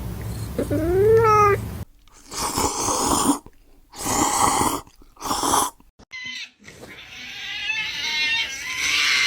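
A cat meowing once, then four short harsh bursts, then a long drawn-out cat call building near the end: cat-meme sound clips.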